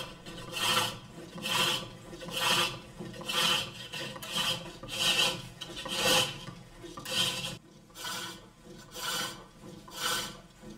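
A steel bowl gouge cuts into a wooden bowl spinning on a lathe: rhythmic scraping strokes of the tool on the wood, about one a second.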